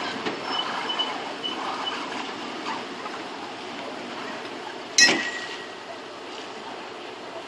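Inflatable pontoon boat sliding off its metal trailer into the water, with steady water noise, a few light clinks in the first two seconds and a single sharp metallic clank about five seconds in that rings briefly as the boat frame leaves the trailer.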